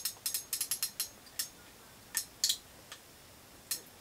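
Fishing reel on a short ice rod clicking while a large fish is played: a quick run of sharp clicks over the first second and a half, then a few scattered clicks.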